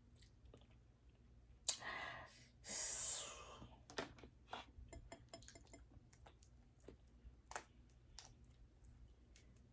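Close-miked eating sounds: soft clicks and cracks of seafood shells being handled and pulled apart, with two short noisy bursts about two and three seconds in, then scattered small clicks.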